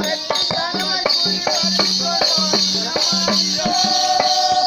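Traditional Batticaloa kooththu music: a hand drum beating a quick, steady rhythm under a constant jingling of bells or small cymbals. A voice sings over it and holds one long note near the end.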